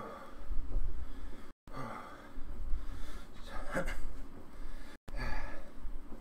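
A man breathing hard from exertion on an exercise bike, with about four heavy exhales or sighs over a low rumble. The audio cuts out briefly twice.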